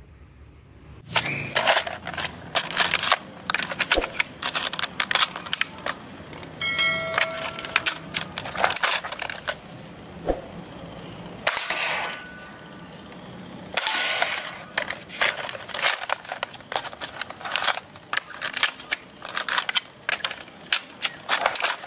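Toy foam-dart gun being fired and handled: many sharp clicks and snaps in quick runs, starting about a second in, with a few short tones in between.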